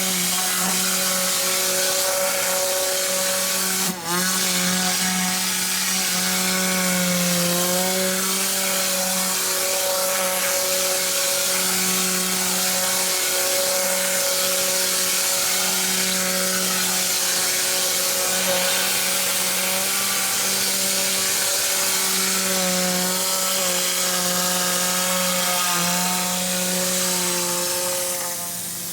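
Compressed-air cyclone vacuum gun running: a steady rush of air hiss with a slightly wavering whine, briefly dipping about four seconds in.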